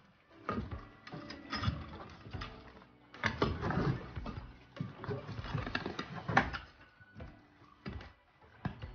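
Long-handled shovel scraping and digging through loose soil and small stones in a brick-lined fire pit, in irregular strokes with occasional sharper knocks, as the soil fill is spread and levelled.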